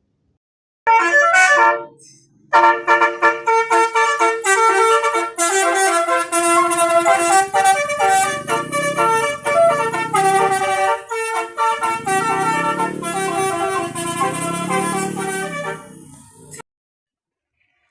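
Basuri telolet horn, an electric multi-tone musical horn, playing a quick tune of changing notes. It starts about a second in, breaks off briefly, then runs on until it cuts off suddenly near the end. A low rising-and-falling wail sounds underneath from about six seconds in.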